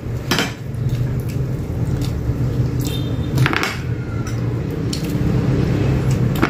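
Two people eating rice and fried chicken by hand from glass plates: chewing, with a few sharp clinks against the plates over a steady low hum.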